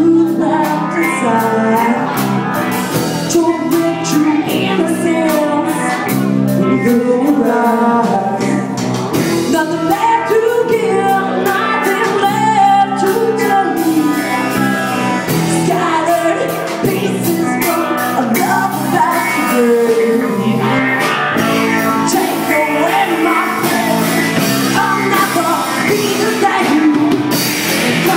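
Live band performing a song: a woman singing lead over electric bass, electric lead guitar and a drum kit.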